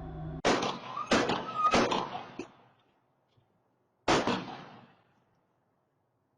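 Four gunshots picked up by a doorbell camera's microphone: three in quick succession about two-thirds of a second apart, then a fourth, last shot a little over two seconds later.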